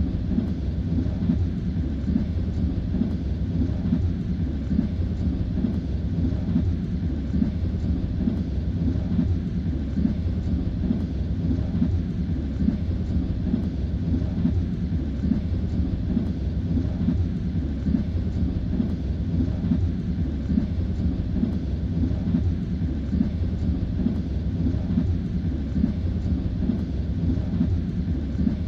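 Passenger train running along the track, heard from inside a carriage: a steady low rumble with the rhythmic clack of wheels over the rail joints.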